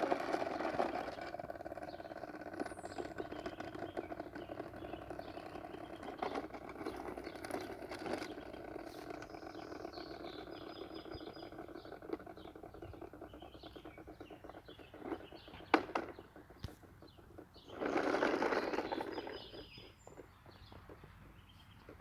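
Toy bubble lawnmower's small motor whirring steadily as it is pushed, fading away over the second half; a couple of sharp clicks and a short rush of noise come near the end, with birds chirping.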